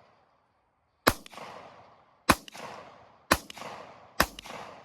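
Four 9mm pistol shots from a Glock 45, fired about a second apart at an uneven pace, each trailing off in a short echo.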